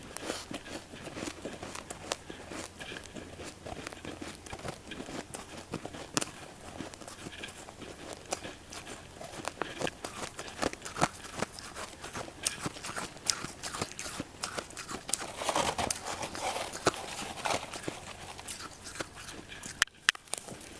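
Close-up chewing of freezer frost: dense, crackly crunching with many small sharp snaps, and a fuller, louder crunch about three-quarters of the way through.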